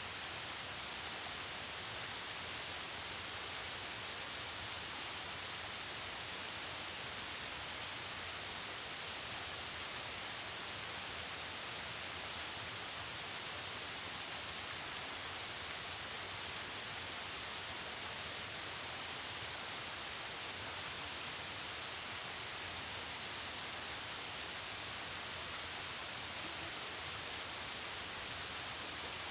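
Mountain waterfall rushing down rocks: a steady, unbroken hiss of falling water.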